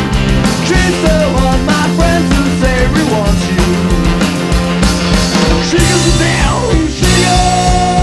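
Rock song played by a band, with a steady drum beat under a wavering melody line and a long held note near the end.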